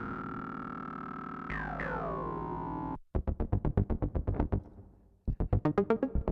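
Polymax software synthesizer playing Prophet-5-style patches. First come held chords with a resonant filter sweeping down on each new chord. About three seconds in it cuts to a fast sequence of short plucked notes, about eight a second, which fades out briefly near five seconds and then starts again.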